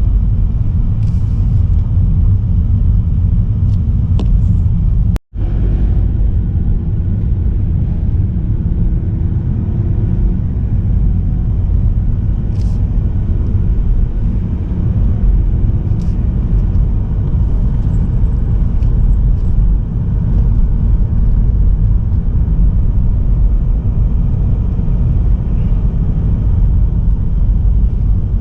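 A car driving: steady low road and engine rumble, broken by a momentary dropout about five seconds in.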